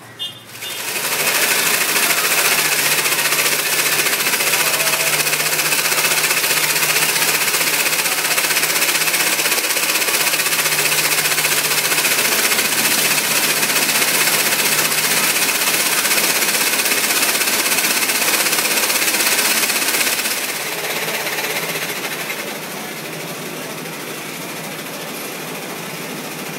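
Motor-driven industrial sewing machine running steadily as it stitches. About twenty seconds in the sound falls away to a quieter steady background.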